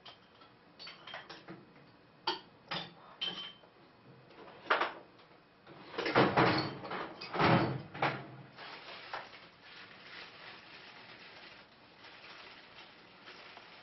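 Knocks, clicks and clatter of hand tools being rummaged through while searching for a socket and wrench. A louder stretch of rattling and scraping comes about six to eight seconds in.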